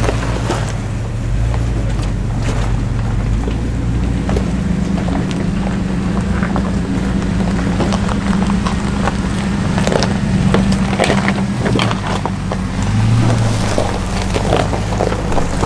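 Vehicle engine running steadily at low revs, its pitch shifting a little, with scattered knocks and rattles from driving over rough off-road trail.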